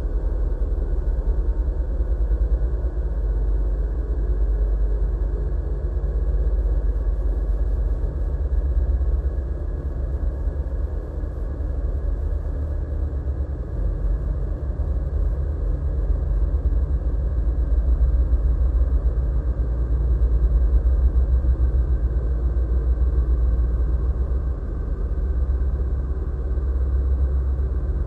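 Steady, deep rumbling drone with faint sustained tones above it, unbroken and without speech: the ambient electronic soundtrack laid under the computer animation.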